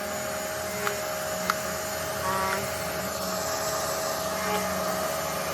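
Pressure washer running: a steady whine with a hum beneath it, and a few faint clicks.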